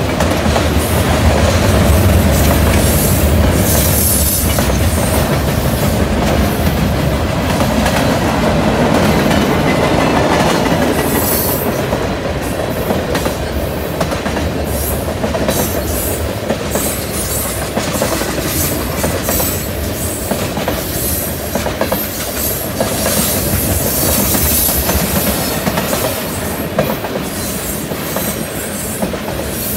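Freight cars, mostly tank cars, rolling past close by: steel wheels on rail making a steady rumble with irregular clicking over rail joints, and bits of high-pitched wheel squeal now and then.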